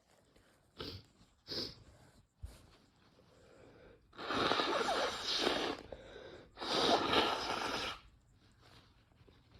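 Two quick sharp sniffs, then two long, forceful nose blows about a second apart, the irritation of Chhinkni sneezing powder in the nose.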